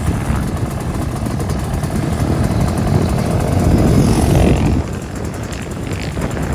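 Pit bike engines racing on a motocross track. The sound builds to its loudest around four seconds in, then drops off suddenly just before five seconds.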